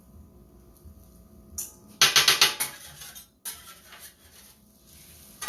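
Metal spatulas clacking and scraping against a flat-top grill: a quick run of sharp metal-on-metal strikes about two seconds in, then a softer second run a second later.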